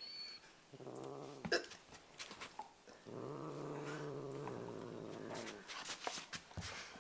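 Bengal cat growling low in warning at a dog pushing its nose up to it: a short growl about a second in, then a longer one lasting two to three seconds from about three seconds in.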